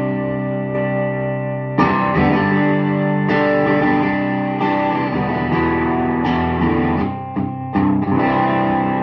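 Electric guitar chords played through a 1960s Stevens Bass Amp, a hand-wired valve Fender Bassman clone with four 6L6 tubes and six 10-inch Audax speakers. The chords are struck every second or two and left ringing, with a quick run of short chords about seven seconds in, and the last one rings out.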